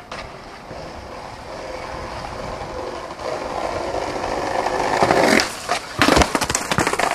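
Skateboard wheels rolling on concrete, growing steadily louder as the board approaches. About five seconds in there is a sharp snap, and a second later the heavy slap of the board landing off a stair set, followed by clattering as it rolls on.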